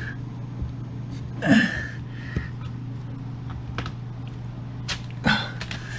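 Small clicks and knocks of hands fitting wiring and plug connectors into an LED ceiling light fixture, over a steady low hum. There is a louder brief sound about one and a half seconds in and a sharper knock near the end.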